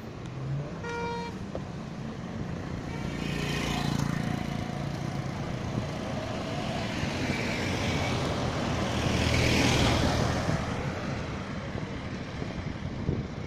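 Road traffic on a busy ring road: engine hum and tyre noise, swelling as vehicles pass at about four and ten seconds. A brief horn toot sounds about a second in.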